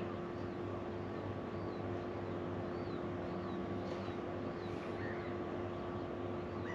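Spinning reel being wound steadily to retrieve a metal lure, with a faint high squeak about two and a half times a second, over the steady low hum of the boat's idling outboard motor.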